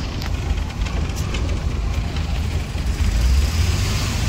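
Steady low rumble of a bus driving over a rough off-road track, heard from inside, with a few short rattles in the first second and a half.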